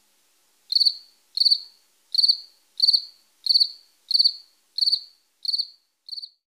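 A cricket chirping in a steady rhythm, about three chirps every two seconds, each chirp a quick high-pitched trill of a few pulses. The last chirp is fainter, and the chirping stops shortly before the end.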